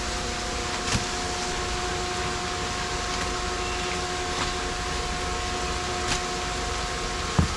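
Steady machinery hum with several held tones, over which a few short thuds sound as rockfish are tossed into a cargo net on deck; the loudest thud comes near the end.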